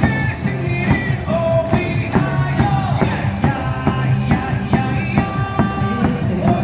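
Baseball cheering song playing through the stadium loudspeakers to a steady beat, with the crowd singing and shouting along.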